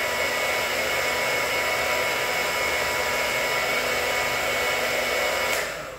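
Countertop blender motor running at high speed with a steady whir and a high whine, frothing a thin pancake batter; it is switched off near the end and stops abruptly.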